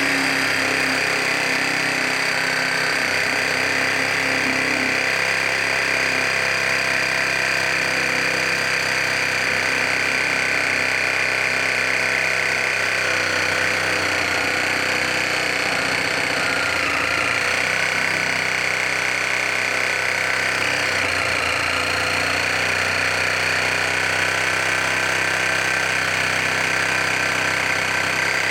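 Cordless reciprocating saw running and cutting wood, its blade chattering steadily. The motor's pitch sags briefly a couple of times past the middle as the blade loads up in the cut.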